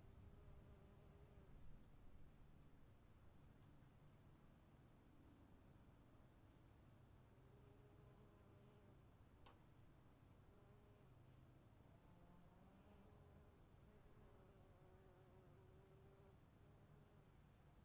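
Faint insects, likely crickets, chirring in a steady high trill throughout, over a faint low rumble; a single click about halfway through.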